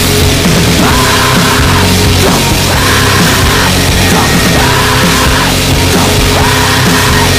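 Loud, hard-driving rock music.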